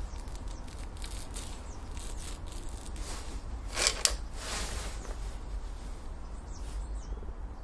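Gamo Whisper break-barrel air rifle being cocked and loaded. About four seconds in, the barrel is broken open with a short scraping stroke, then locked shut with a click about half a second later. Under it runs a steady low outdoor rumble.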